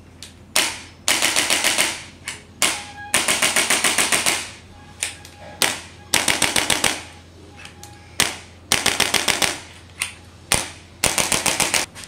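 Handheld chiropractic adjusting gun firing against the lower back. About five times over, a single sharp click is followed by a rapid run of clicks, about ten a second, lasting about a second.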